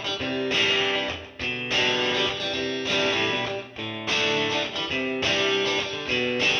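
Background music led by a guitar playing chords.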